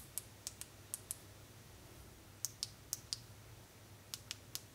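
Light, sharp clicks in three quick runs of about five each, like fingers tapping or clicking, over faint room noise.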